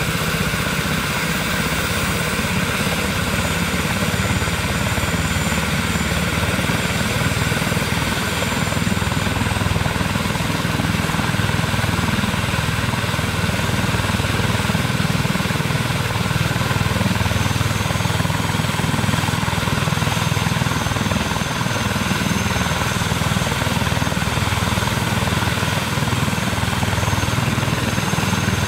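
Airbus H145 rescue helicopter running on the ground with its main rotor turning. A steady turbine whine sits over the rotor noise, with no change in level.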